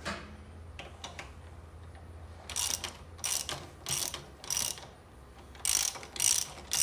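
Hand socket ratchet worked in short strokes, its pawl clicking in bursts about twice a second, starting a couple of seconds in and pausing briefly before going on.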